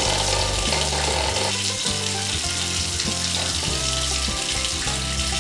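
Background music with a stepping bass line, over a continuous rushing hiss like running water.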